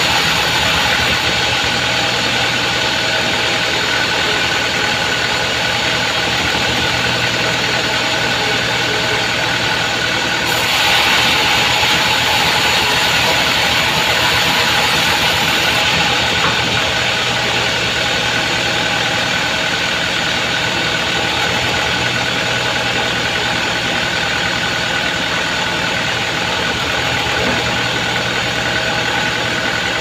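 Vertical band sawmill running steadily as it saws mahogany: a machine hum with several held tones over the hiss of the blade. The hiss grows louder about ten seconds in and eases back some five seconds later.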